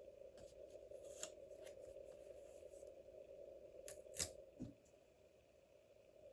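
Faint paper-crafting handling sounds: light rustles and ticks of paper and stickers being worked, with a sharper click a little after four seconds in and a soft thump just after, over a steady low hum.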